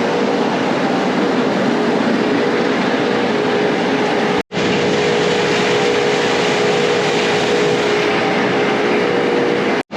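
Heavy farm machinery running steadily: a loud rattling rumble with a steady hum, cut off abruptly twice.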